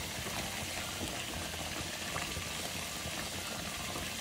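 Chicken and meat simmering in a tomato-and-vegetable sauce in an aluminium pot, a steady hiss of cooking.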